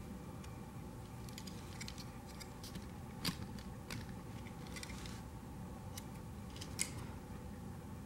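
A plastic wiring-harness connector clicking and rattling in the hands as its wire terminals are pushed and worked loose. The clicks are small and scattered, with two sharper ones about three seconds in and near the end.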